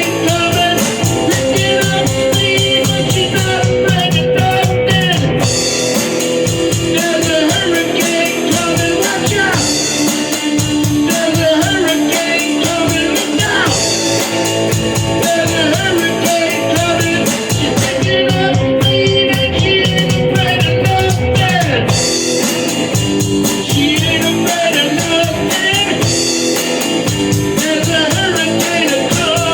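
A rock song playing: drum kit and guitar keep a steady beat.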